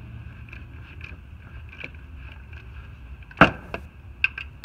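Hand tools working on the tensioner's mounting bolts under a truck's hood: scattered light ticks over a steady low rumble, then a sharp metal clank about three and a half seconds in, followed by a few smaller clinks.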